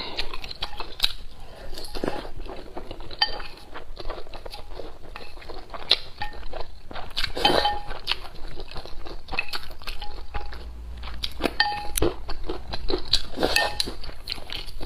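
Close-miked mukbang eating sounds: chewing and crunching, with wooden chopsticks clinking and scraping against a ceramic bowl of spicy broth in a run of short clicks.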